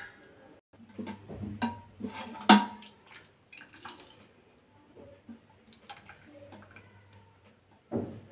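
Metal ladle stirring and scooping cooked toor dal in an open aluminium pressure cooker: wet slopping of the thick liquid with light clinks of metal on metal, the sharpest about two and a half seconds in and another near the end.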